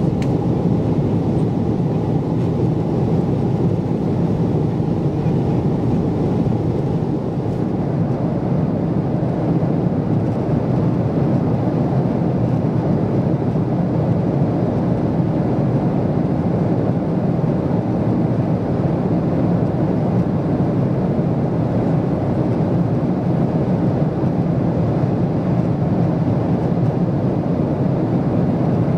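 Steady jet airliner cabin noise inside a Boeing 777-200ER in flight: an even, unbroken low rumble of engines and airflow.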